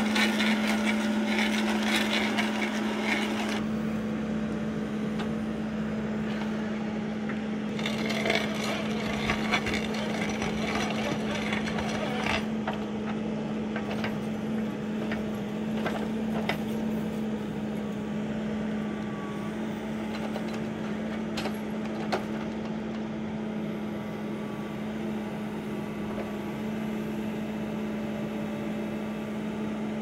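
Backhoe loader engine running steadily with a constant hum while a Dipperfox SC600 stump crusher breaks up a tree stump, giving scattered sharp cracks of splitting wood. The machine is louder for the first few seconds, then settles.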